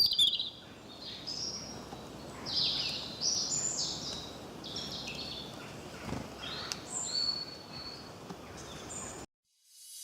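Birds calling: a series of short, high chirps that fall in pitch, repeated every second or so over a faint steady background noise. The sound cuts off abruptly near the end.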